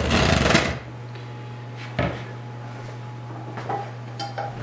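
Kitchen handling noise on a countertop: a rough clatter as a plastic bowl and a pot holder are moved and set down, a single knock about two seconds in, then a few light taps near the end, over a steady low hum.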